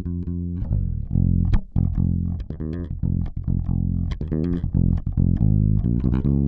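A recorded bass line of short, plucked low notes, playing through a Great River PWM-501 500-series compressor while its settings are adjusted.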